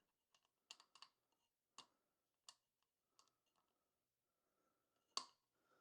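Faint, scattered clicks of small metal chainsaw parts, bolts and a washer, being handled and set down, about six in all, with one louder click near the end.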